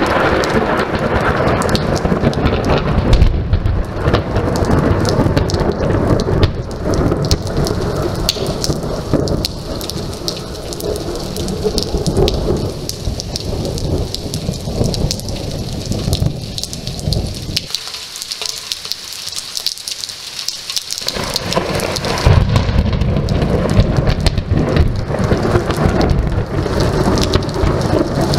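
Thunderstorm: rain falling with deep rumbles of thunder. The rumble dies away a little past halfway, leaving a few seconds of rain alone, then a fresh peal of thunder comes in about three-quarters of the way through.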